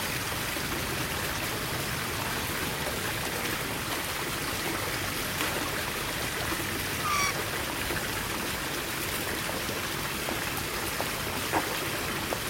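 Steady rushing noise like running water. About seven seconds in, a bird gives one short, falling squawk.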